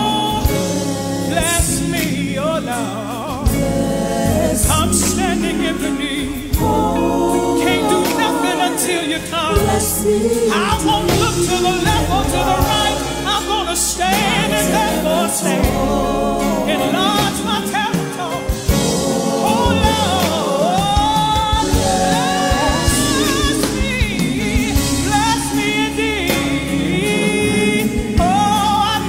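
Live gospel music: a woman's solo voice singing, joined by other voices singing along, over instrumental accompaniment.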